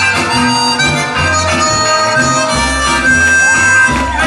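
Harmonica played into a microphone, held and bent notes in a blues solo, over backing music with a pulsing bass line.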